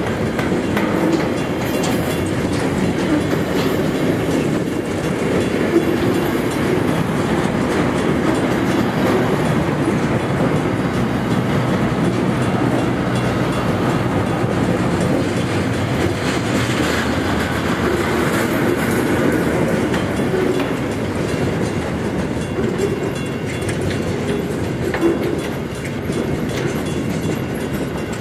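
Freight train wagons (container flats and box vans) rolling past at close range: a steady rumble and clatter of steel wheels on the rails.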